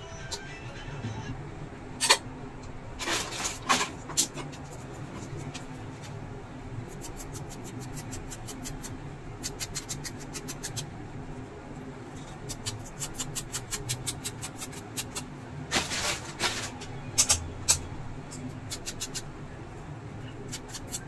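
Hands and a small hand tool working on an induction cooker's plastic control panel and switch circuit board: sharp clicks and knocks, with runs of quick, even ticking at about five a second, over a low steady hum.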